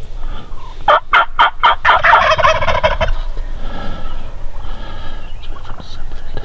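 Wild turkey tom gobbling loudly at close range: a rapid rattling gobble that starts about a second in and lasts about two seconds, followed by fainter gobbling.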